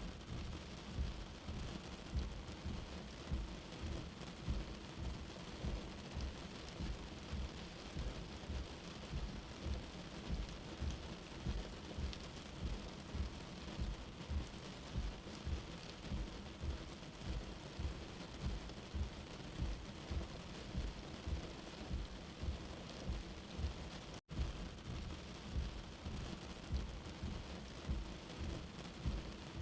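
Steady rain, a continuous hiss with low thumps repeating roughly once or twice a second. The sound cuts out for an instant about 24 seconds in.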